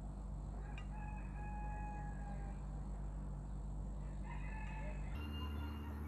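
A rooster crowing twice: a long held call about a second in and a shorter one near the end, over a steady low hum.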